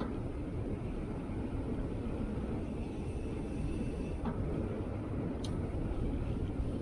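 Velomobile rolling slowly along a cycle path: a steady low rumble of the ride, with two faint ticks past the middle.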